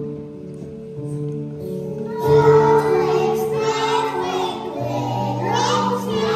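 A group of young children singing a song together over an instrumental accompaniment; after a quieter instrumental stretch, the singing comes in loudly about two seconds in.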